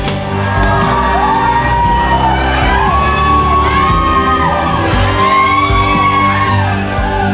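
Background music: sustained chords under a melody of long notes that glide up and down, with a singing-like voice.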